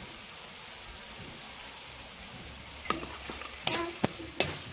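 Spice masala sizzling softly in a metal kadai as it is fried down. From about three seconds in, a metal spatula scrapes and knocks against the pan several times as the masala is stirred.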